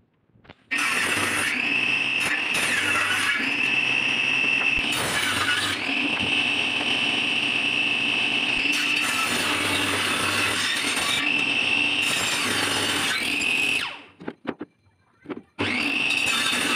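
Homemade table saw with a circular blade running and cutting wooden boards: a steady motor whine whose pitch dips and bends as wood is pushed through the blade. The sound breaks off suddenly at the start and again for about a second and a half near the end.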